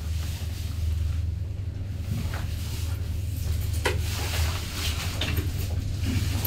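Passenger lift car travelling upward: a steady low hum from the car in motion, with a few faint clicks and knocks along the way.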